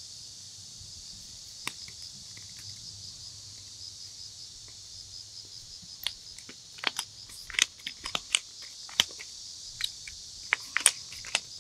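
A wooden pepper mill being twisted, giving a run of sharp, irregular clicks from about six seconds in, without grinding properly: the mill is broken. Insects chirp steadily in the background.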